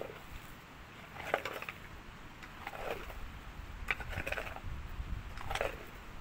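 A metal shovel blade striking and scraping into stony soil, about five strokes a second or so apart, clattering against stones.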